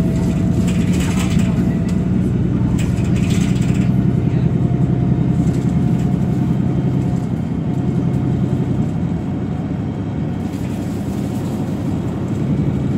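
Cummins ISB6.7 diesel engine and Voith DIWA automatic gearbox of a VDL DB300 Wright Gemini 2 double-decker bus heard from inside the saloon, running steadily under way with a faint whine above the engine note. The drive note eases about ten seconds in and builds again near the end.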